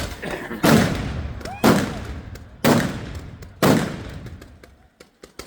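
Fireworks going off: four loud bangs about a second apart, each trailing off in a rumbling echo, with fainter crackles between them.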